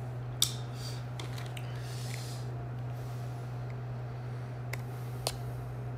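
Steady low electrical hum with a handful of sharp, light clicks and a soft rustle about two seconds in, like small handling noises close to the microphone.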